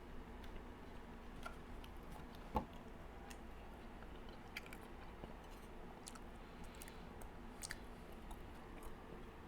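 Faint chewing of a mouthful of chocolate cake: soft wet mouth clicks scattered throughout, with one louder knock about two and a half seconds in.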